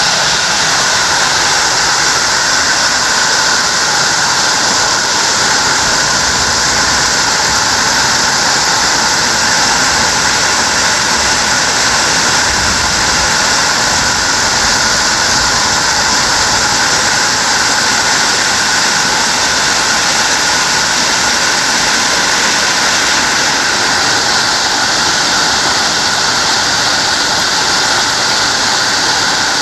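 Heavy fall of small hailstones pelting down steadily, a loud, even rush of noise with no let-up.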